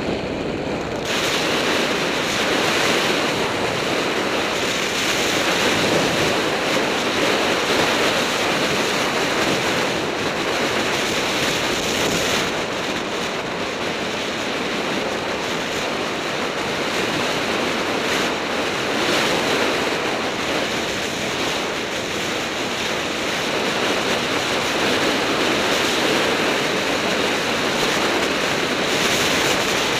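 Steady wind noise buffeting the microphone of a camera moving fast downhill on a road descent, swelling and easing a little as the speed changes, with no engine note.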